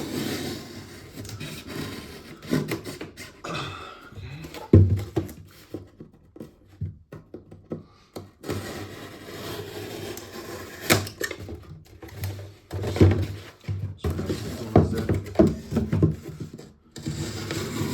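Serrated knife sawing through double-wall corrugated cardboard in rasping strokes, broken by irregular knocks and thunks.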